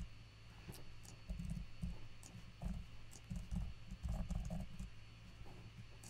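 Typing on a computer keyboard: faint, irregular key clicks in short runs.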